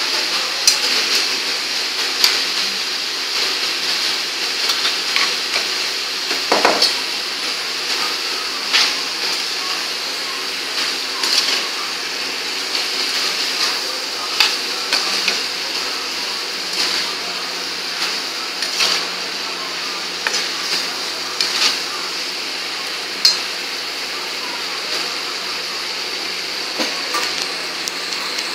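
Steel ladle scraping and clinking against a stainless-steel kadhai while paneer and vegetables are stir-fried, with irregular clinks every second or two over a steady hiss of frying.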